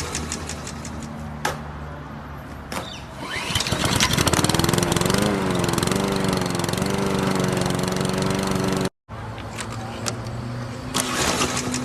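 Lawn mower engine being pull-started: rattling pulls of the starter cord, then the engine catches about four seconds in and runs with a wavering pitch. After a brief cut near nine seconds the cord pulls and engine start come round again.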